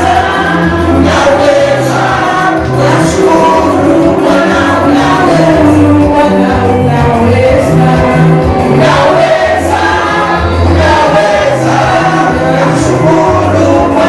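Gospel choir singing a praise and worship song over a band with a steady bass line.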